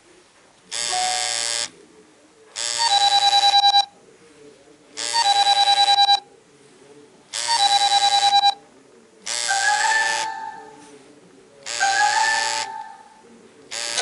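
Apple iPhone 3GS (model A1303) loudspeaker playing short ringtone previews one after another: six electronic tone bursts about a second long, roughly every two seconds. The middle three are alike and end in a fast stutter, and the two after them each have a rising glide. A different, busier tone starts right at the end.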